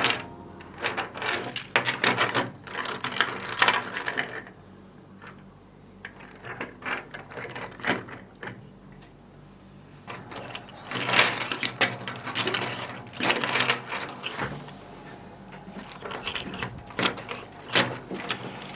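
FDM 3D printer running, its stepper motors whirring and buzzing in irregular bursts as the print head moves, over a steady low hum, with a quieter stretch near the middle.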